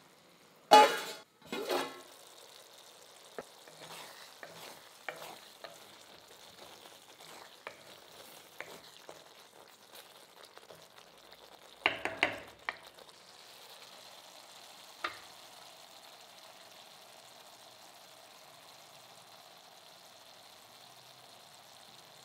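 Masala gravy bubbling and sizzling faintly in a heavy kadai. A spatula scrapes and stirs through it loudly, about a second in and again about twelve seconds in, with a single sharp clink a few seconds later.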